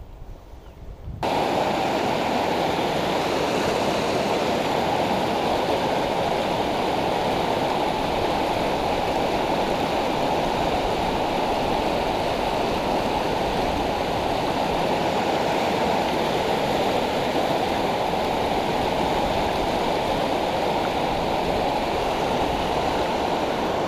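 Fast creek riffle rushing over rocks: a steady, even rush of water that starts abruptly about a second in.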